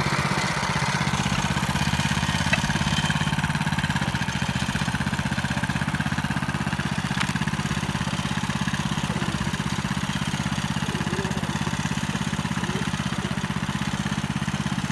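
Small single-cylinder engine of a Branco walk-behind tractor running steadily as it pulls a wooden trailer.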